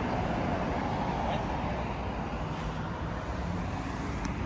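Steady road traffic noise from cars on a busy multilane city street.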